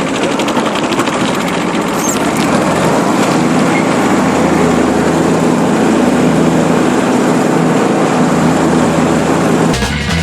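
Kubota GR1600 ride-on mower's small diesel engine running steadily after being started, getting a little louder about three seconds in.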